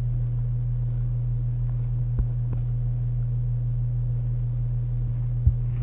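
Steady low electrical hum on the recording, with a few faint clicks, the sharpest near the end.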